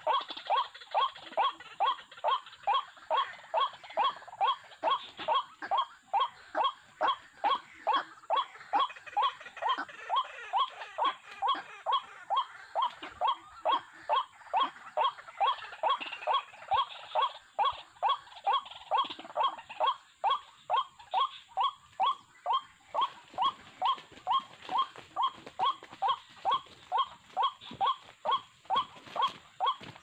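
White-breasted waterhen call, a short 'wak' repeated steadily and monotonously about twice a second without a break, the call used as a lure to draw waterhens into the trap.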